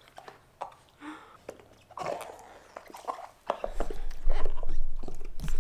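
A Boston terrier chewing and mouthing a rubber ball: scattered small clicks and wet chewing noises. About two-thirds of the way in, a louder low rumble of the camera being handled takes over.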